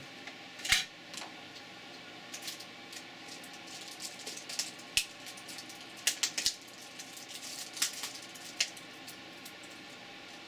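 Scattered small clicks and taps of tools and small parts being handled on a workbench. The loudest comes about a second in, with a quick cluster of taps around six seconds in, over a faint steady hiss.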